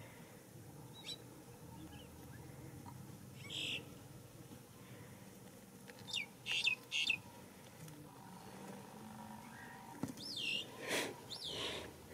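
Short high-pitched chirping calls in small clusters: one about three and a half seconds in, a quick run of three around six to seven seconds, and several with falling, curving pitch near the end, over a faint steady outdoor background.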